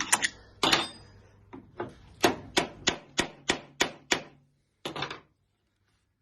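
A run of sharp metal clicks, evenly spaced at about three a second, from a screwdriver turned with a spanner to undo a tight screw in a Volkswagen Beetle door. The clicks stop about five seconds in.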